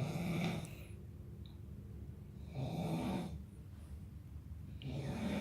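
Snoring: three snores about two and a half seconds apart.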